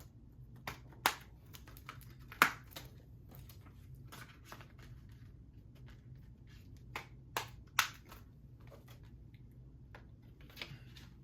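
Plastic Blu-ray case being handled: scattered sharp clicks and snaps with light rustling, the loudest snaps about a second in, near 2.5 s and twice near 8 s.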